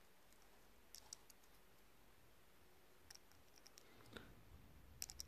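A few faint, scattered clicks of a small precision screwdriver tip prying and scraping at the tiny white plastic parts of a wind-up chattering-teeth toy, otherwise near silence.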